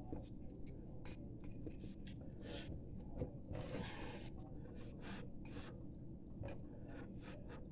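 A person eating ramen noodles: soft slurping and chewing mouth sounds, with a longer slurp about four seconds in.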